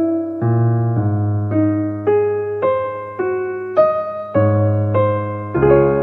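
Background piano music: a slow, gentle melody of single notes, about two a second, over held bass notes.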